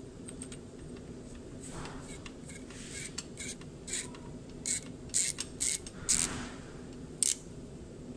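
Top cap of an Orion 9609BNWP fluoride electrode being screwed back on by hand: a run of short creaks and scrapes from the threads, coming thickest in the second half.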